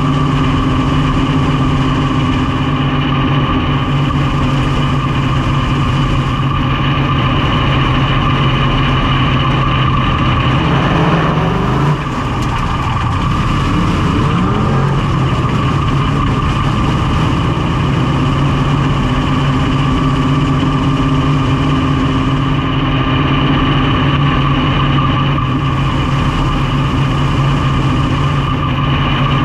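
Big-block V8 of a dirt modified race car, heard from inside the cockpit, running loud and steady at slow pace-lap speed. About twelve seconds in it dips briefly, then climbs in pitch as the throttle comes back on, before settling back to a steady drone.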